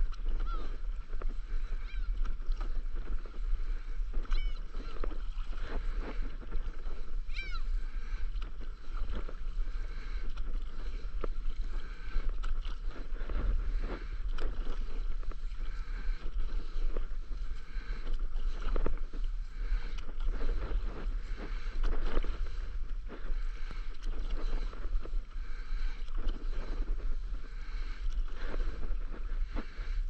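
Stand-up paddleboard paddle strokes in calm sea water: the blade repeatedly catches, pulls through and splashes out, every second or so. A steady low rumble runs underneath.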